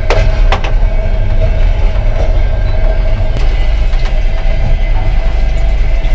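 Running noise of a moving long-distance passenger train heard inside a carriage washroom: a loud, steady low rumble with a faint whine, and two sharp clicks about half a second apart near the start.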